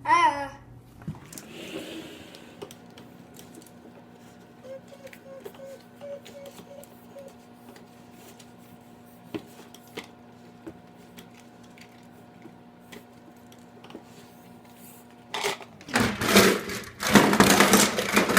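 Hands working open a Play-Doh egg: scattered faint clicks and handling noise over a steady low hum. About sixteen seconds in, loud rustling and crinkling of the toys' packaging starts.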